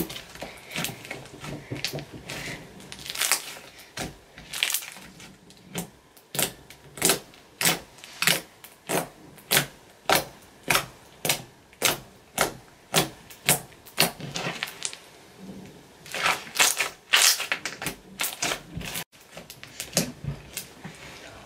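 Homemade metallic gold slime being squished and stretched by hand, giving a steady run of sharp wet clicks and pops, about one or two a second.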